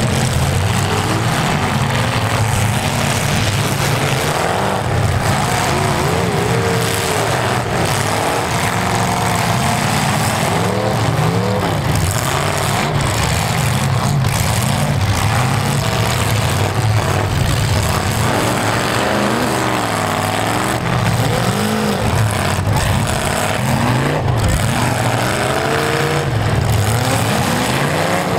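Several demolition-derby cars' V8 engines running at once and being revved hard, many overlapping engine notes rising and falling as the cars push against each other.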